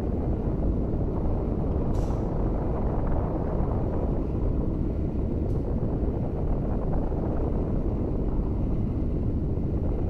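A steady low rumble with no tune or rhythm, with a faint click about two seconds in and another about five and a half seconds in.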